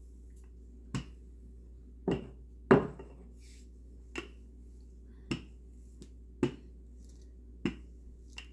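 Sharp knocks and thuds on a kitchen counter, about one a second and unevenly spaced, as pie crust dough is worked flat. A steady low hum runs underneath.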